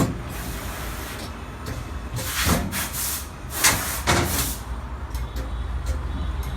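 Screen printing machine running with a steady low hum, broken by four short bursts of air hiss in the first five seconds and a few sharp clicks near the end.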